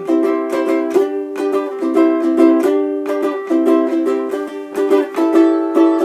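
Ukulele strummed in a steady rhythm, its chords changing every second or so.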